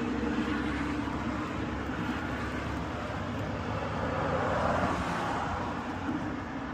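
Steady background road-traffic noise, swelling a little about four to five seconds in.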